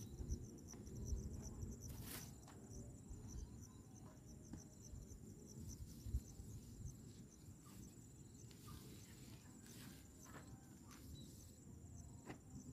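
Faint insects trilling steadily in a fast, high-pitched pulse, with a few soft rustles and taps from a plastic tarp being spread out and straightened.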